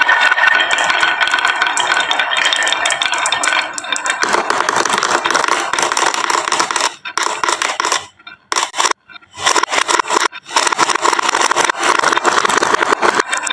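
Many marbles rolling and clattering down a wooden marble-run track, a dense rattle of small clicks. It thins to scattered clicks with short gaps about seven to ten seconds in, then picks up again.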